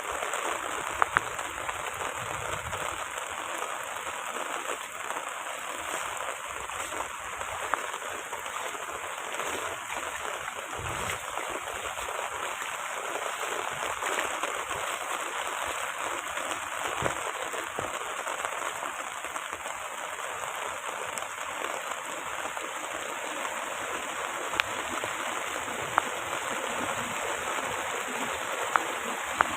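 Heavy rain falling in a steady downpour, with a few sharp ticks now and then.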